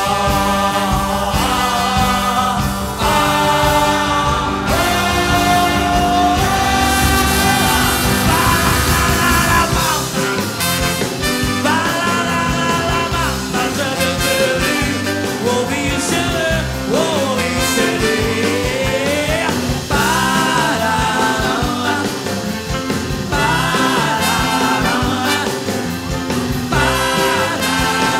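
Swing band playing an upbeat number, a sliding melody line over a steady rhythm section.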